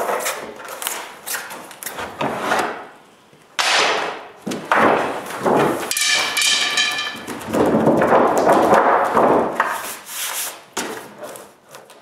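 A large, flexible sheet of formica plastic laminate being handled over a contact-cemented countertop: the sheet flexing, rubbing and thumping down, and wooden spacer sticks slid out from under it, with a brief pitched squeak about six seconds in.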